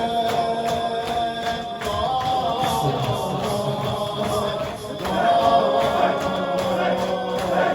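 A Muharram mourning chant (noha): voices chanting together in long held tones over a regular beat.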